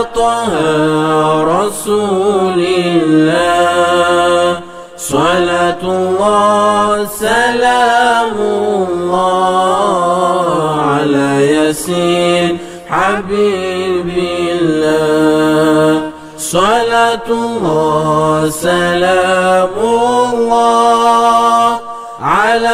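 Nasheed chanting: a voice sings long, drawn-out gliding notes in phrases of a few seconds each, with brief breaks between them.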